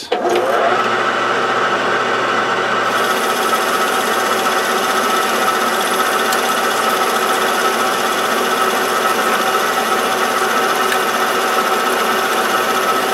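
A small hobby metal lathe starts up with a short rising whine, then runs with a steady whine. From about three seconds in, the tool takes a 0.6 mm turning cut on the metal bar, giving a decent finish and breaking chips.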